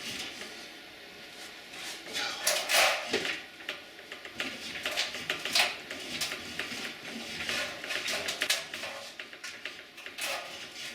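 Irregular metal clanks, clicks and scrapes as 1/8 inch steel plate is worked in a hand-cranked sheet metal roller, with a few louder clanks spread through.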